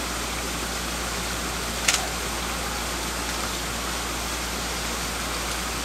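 Steady rushing background noise with one sharp click about two seconds in.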